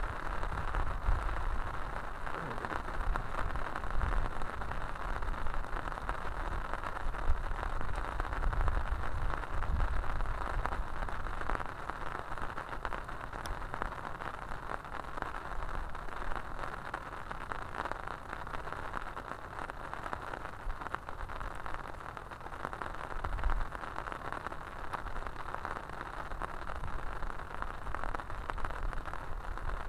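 Steady rain falling, an even patter throughout, with irregular low rumbles underneath.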